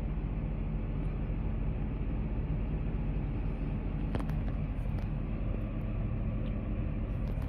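Tractor engine running steadily, heard from inside the cab while pulling a Kuhn FBP 3135 baler-wrapper. A couple of short clicks come about four and five seconds in.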